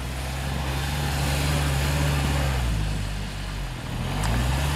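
UAZ Patriot's engine revving under load as the SUV tries to drive out of deep snow with its wheels spinning. The revs sag about three seconds in and climb again near the end.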